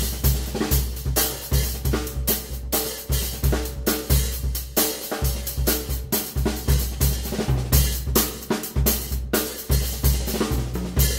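Ludwig drum kit played solo: a dense, continuous run of strokes across bass drum, snare, toms and cymbals, with heavy bass drum thumps under the stick work.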